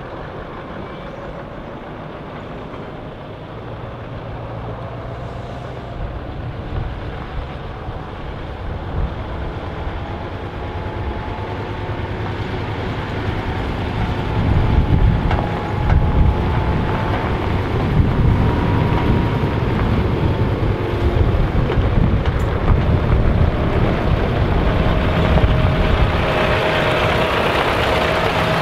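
Scania bonneted truck's V8 diesel engine running under load as it pulls a heavy low-loader carrying an articulated dump truck, getting louder as it comes close, loudest in the second half.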